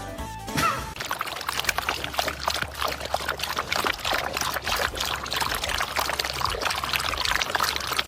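Water pouring and splashing: a steady, irregular spattering that starts about a second in.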